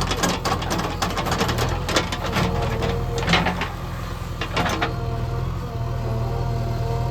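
Diesel engine of a backhoe loader running steadily, with a clatter of knocks and rattles for the first five seconds or so, then just the steady running.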